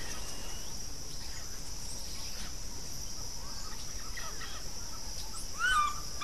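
Savanna ambience: a steady, high-pitched insect drone, with scattered faint bird chirps and a louder burst of bird calls near the end.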